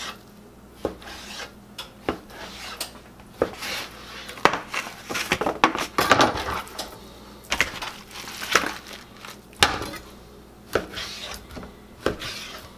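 A large kitchen knife cutting a raw salmon fillet into portions on a plastic cutting board, with irregular knocks and scrapes of the blade on the board and clatter as pieces are set into a metal baking tray.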